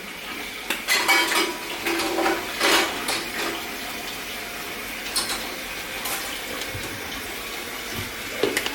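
Kitchen tap running into a sink, with a few clinks and knocks of dishes and utensils in the first few seconds.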